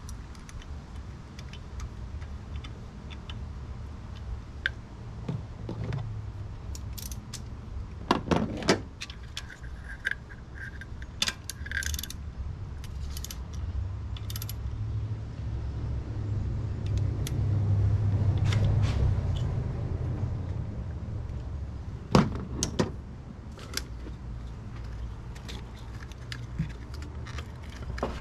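Metallic clinks and clicks of a socket wrench on a long extension working the spark plugs in a stopped engine, coming in irregular bursts with the sharpest knocks about 8 and 22 seconds in. Under them runs a low rumble that swells around the middle and fades again.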